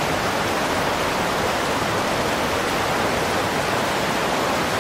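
Steady, unbroken rushing of water, even in level throughout.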